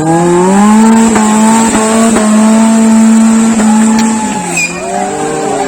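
Off-road 4x4 jeep engine revving up and held at high revs under load for about four seconds, then dropping back, with a few sharp knocks along the way: the jeep is being driven hard up a muddy climb.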